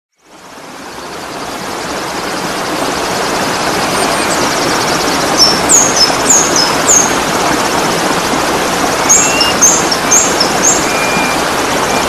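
Steady rush of falling water from a waterfall, fading in at the start. Small birds call over it: a run of short, high, downward-sliding chirps from about five seconds in and again near the end, with a buzzy trill and a few thin whistles.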